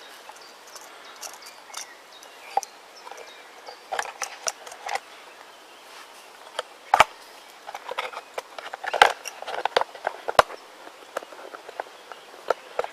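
Irregular rustling, clicks and crackles of camping kit being handled and packed away by hand, with the sharpest snaps about seven and nine seconds in.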